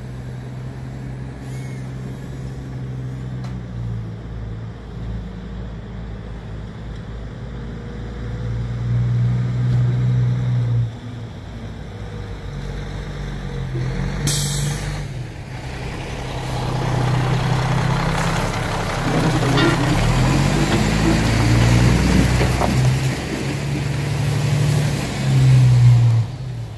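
Heavy truck diesel engines running and revving, rising and falling in pitch and getting louder in the second half. A short air-brake hiss comes about halfway through.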